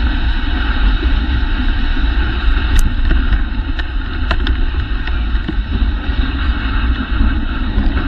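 Steady rushing noise of a dog sled running over a packed snow trail, with wind buffeting the sled-mounted camera's microphone as a deep rumble. A few sharp clicks come in the middle.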